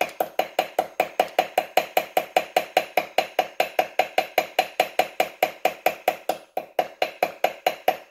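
Small hammer tapping rapidly on the new flywheel key to seat it in the crankshaft keyway of a Yamaha Raptor 700 engine. The light metal-on-metal taps come about five a second with a short ring, and grow lighter over the last second and a half.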